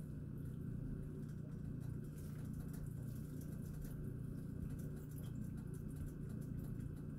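Butter melting and foaming in a skillet, giving faint irregular crackles and sizzle as a spatula stirs it, over a steady low hum.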